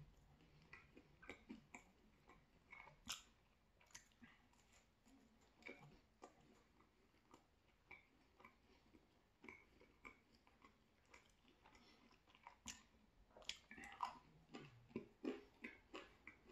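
A person chewing a slice of thin-crust pizza: faint, irregular crisp clicks of teeth on crust and mouth sounds, growing busier and louder from about 13 seconds in.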